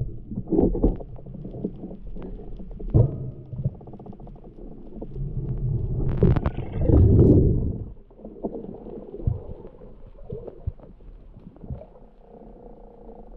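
Muffled underwater rumbling and swishing of water moving past a waterproof camera housing as a spearfisher swims, with scattered light knocks and a louder rushing surge a little past halfway through.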